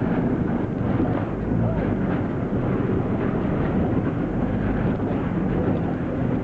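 Auto-rickshaw (tuk-tuk) engine running steadily as it drives along, heard from inside the open cab.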